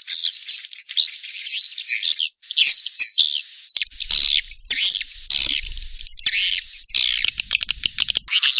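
Edible-nest swiftlets twittering: dense runs of rapid, buzzy chirps in short bursts, over a thin steady high tone. This is a swiftlet lure call, played to draw the birds in to roost.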